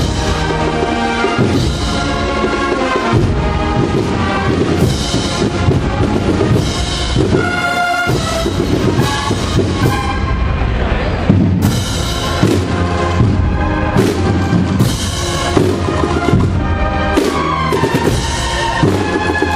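Procession band of brass and drums playing a processional march: a brass melody over snare and bass drums.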